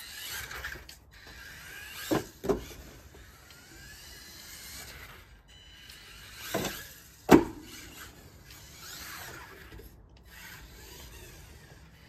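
Losi Micro-B micro RC buggy's little electric motor whining up and down in pitch as it speeds up and slows on a wooden deck, with its tyres scrubbing on the boards. Several sharp knocks of the car hitting and bouncing on the wood: two close together about two seconds in, and the loudest just after seven seconds.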